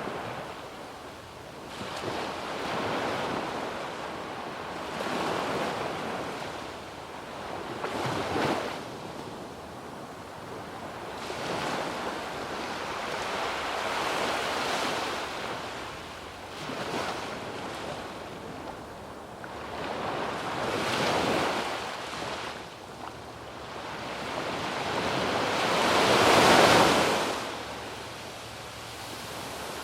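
Sea waves breaking and washing up on a sandy beach, rising and falling in surges every few seconds, the biggest one near the end.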